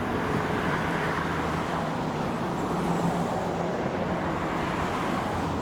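Steady road-traffic noise, an even rushing with a faint low hum underneath.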